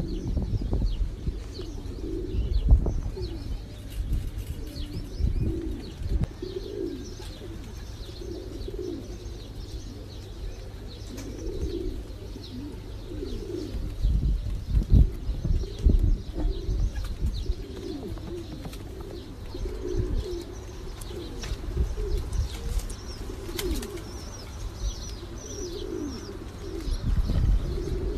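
Domestic pigeons cooing over and over, with faint high chirps of small birds and scattered low thumps.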